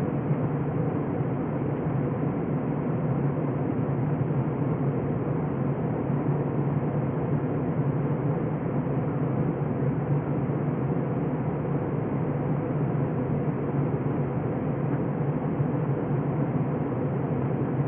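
Cabin noise inside an Airbus A321 in flight: the jet engines and the airflow past the fuselage make a steady drone with a low hum underneath.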